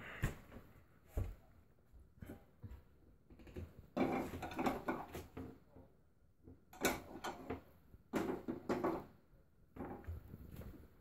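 Kitchen handling sounds: irregular knocks and short clatters of utensils and cookware being picked up and set down, with two sharp knocks in the first second and busier clusters later.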